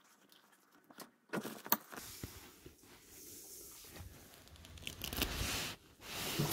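Handling noise as a metal cotter pin is worked into the calf-extension bracket of a massage chair: a few light clicks, then rustling and scraping of the chair's upholstery that grows louder about five seconds in.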